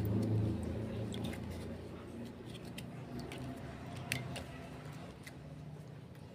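A small plastic sachet of coconut milk being squeezed out over a pot, its packet crinkling in scattered small clicks. A low hum in the background slowly fades.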